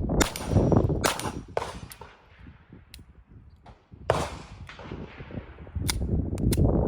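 Ruger Mark IV Tactical .22 LR rimfire pistol, unsuppressed, firing a string of single shots: sharp cracks spaced irregularly, from about half a second to a couple of seconds apart, with a lull in the middle.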